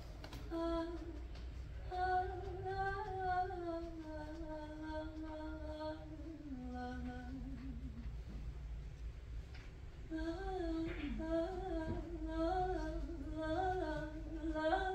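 A woman's unaccompanied wordless singing: long held notes that step down in pitch, a short pause about eight seconds in, then a wavering melody of repeated rising-and-falling phrases.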